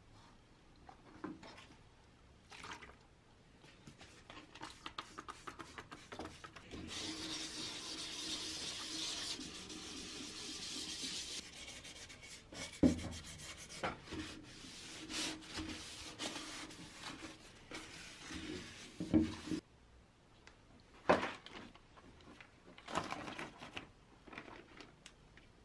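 Fine P400 sandpaper rubbed by hand over the painted steel shell of an Adrian helmet, a steady scratchy sanding from about seven seconds in that goes on in strokes until about twenty seconds, smoothing the freshly sprayed paint coat. After that, a few short rustles and clicks of a plastic zip bag being handled.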